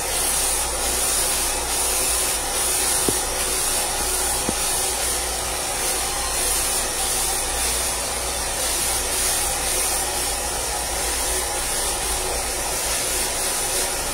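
Handheld hair dryer running steadily, a continuous rush of blown air close to the microphone.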